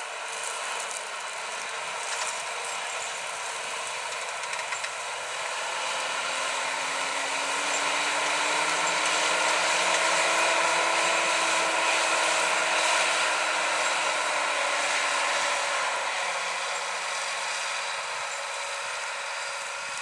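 John Deere 7310R tractor's six-cylinder diesel engine running under load as it pulls a seven-furrow plough through the soil, steady at first, growing louder to a peak around the middle as it passes close, then fading, its engine note rising and falling slightly as it goes by.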